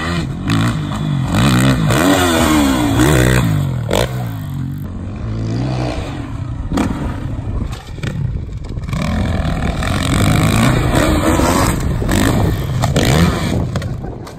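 Dirt bike engine revving up and down over and over, in rising and falling sweeps as the throttle is worked through the jumps.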